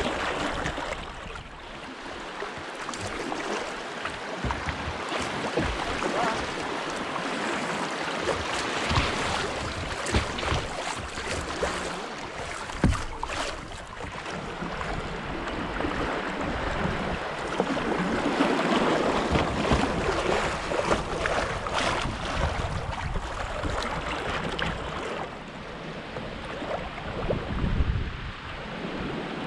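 Rushing water of a shallow river riffle streaming past a kayak's hull, with frequent splashes and knocks of paddle strokes and some wind buffeting the microphone. A sharper knock comes about halfway through.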